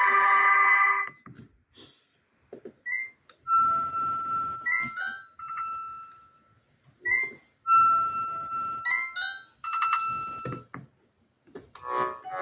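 Alcatel OneTouch 2010X flip phone's speaker playing its built-in alert tones: a ringtone melody cuts off about a second in, then short electronic chirps and held single-pitch beeps come in twos with short gaps between them, and another ringtone melody starts near the end.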